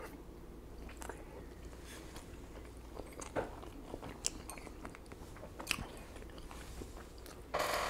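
Close-miked chewing and biting of food, with scattered sharp wet mouth clicks and a louder, longer chewing burst near the end.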